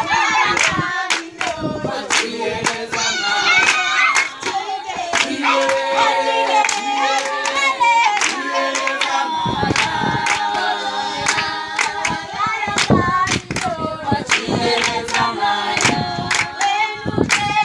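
A group of girls singing a song together a cappella, keeping time with hand claps.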